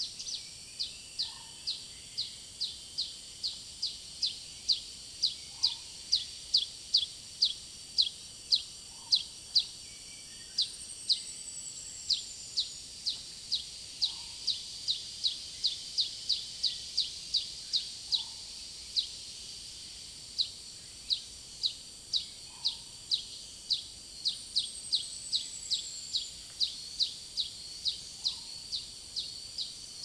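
Tropical forest chorus of insects and birds: a sharp high chirp repeated about two to three times a second throughout, over a steady, very high-pitched cicada whine. A short falling whistle comes twice, and a faint low call comes every few seconds.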